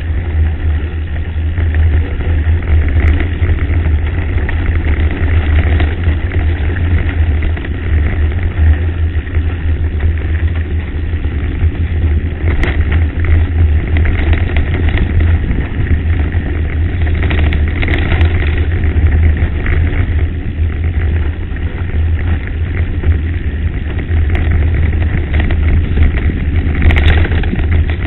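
Wind rumbling and buffeting on a bike-mounted camera microphone while a mountain bike rides a gravel track, with the tyres crunching over the stones and a few sharper knocks from bumps.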